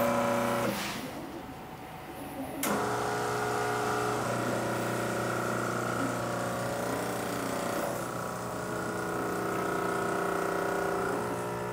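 Espresso machine pump starting about two and a half seconds in and running with a steady hum, pushing water against a blind basket to build brew pressure up to the 9-bar setting of the freshly adjusted over-pressure valve.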